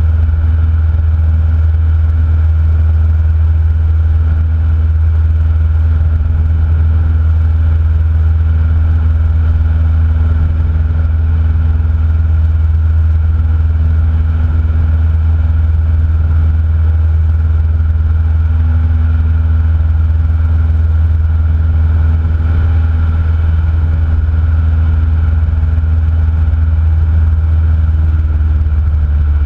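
Cessna 172N's four-cylinder Lycoming engine and propeller droning steadily at constant power, with no change in pitch.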